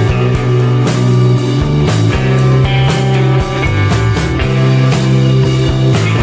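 Rock music with a steady drum beat, about two hits a second, under sustained guitar and bass notes.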